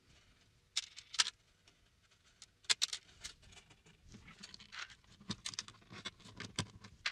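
Steel strings of a 12-string acoustic guitar being handled and pulled through the bridge: scattered light clicks and rattles, with sharper clicks about a second in and just before three seconds, and a run of lighter ticks in the second half.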